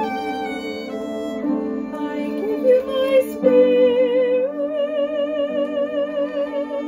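Small mixed choir singing a hymn in parts, several voices on sustained notes; in the second half a long note is held with a clear vibrato.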